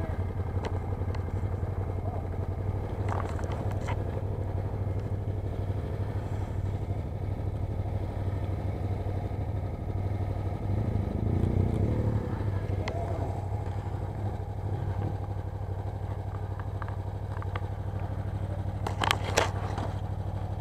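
Motorcycle engine running steadily, swelling briefly about halfway through. Near the end, sharp knocks and scrapes of the camera being handled.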